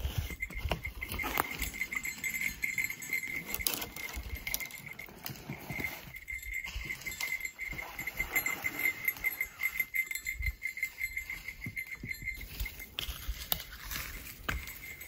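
Irregular splashing and pattering of water, as if someone is washing in the shallows, over a steady high trill that pulses evenly throughout.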